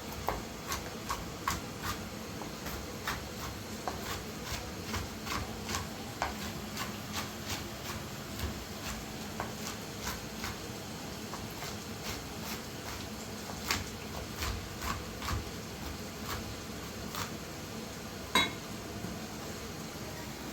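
Light clicks and clinks of small hard objects being handled, irregular at about two or three a second, over a steady low hum, with one louder knock near the end.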